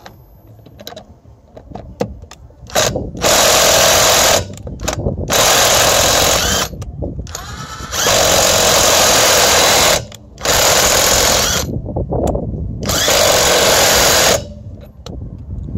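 FXA impact wrench hammering in about five bursts of one to two seconds each, as it undoes a bolt.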